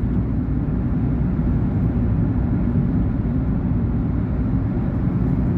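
Steady low rumble of a 2019 VW Polo Vivo's engine and tyres heard from inside the cabin while driving.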